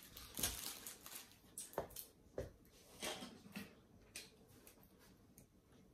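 Quiet table sounds of cooked shrimp being peeled by hand and eaten: soft crackles of shell and a few light clicks scattered through.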